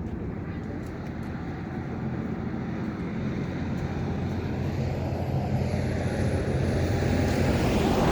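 Tour coach running at speed: a steady engine and road rumble that swells louder over the last few seconds, with a faint high whine sliding slowly down in pitch.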